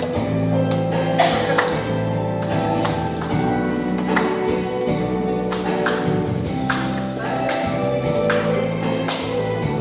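A harmonica duet on G and G# harmonicas playing a slow melody over a backing track with a steady drum beat.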